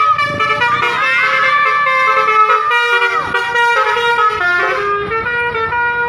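Basuri V3 'telolet' musical horn on a tour bus playing a tune: loud held multi-note horn tones stepping from pitch to pitch, with a few quick sliding swoops.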